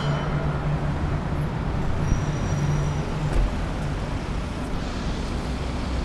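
Fire engine's diesel engine running with a steady low hum under city traffic noise, the hum fading about halfway through. Two short knocks come in the middle.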